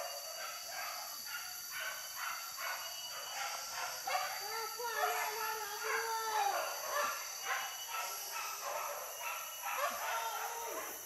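Hunting dogs barking and baying over and over, with longer drawn-out howling calls around the middle.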